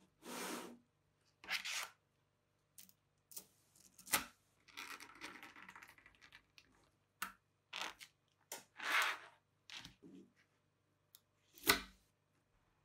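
Small magnetic buckyballs being worked by hand: a card scraped through a sheet of them and the rows pulled apart and snapped together, giving short rustling scrapes and sharp clicks. A longer crackling stretch comes about five seconds in, and the loudest snap near the end.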